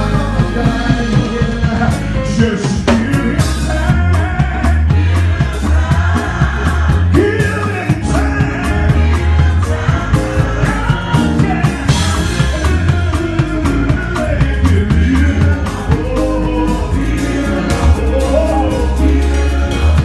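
Live gospel music: voices singing over a drum kit with cymbals and a heavy bass line, picked up close to the drums.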